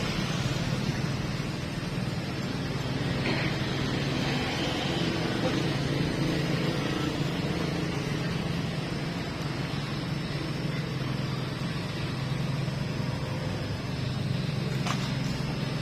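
A steady engine-like hum, with a single short click near the end.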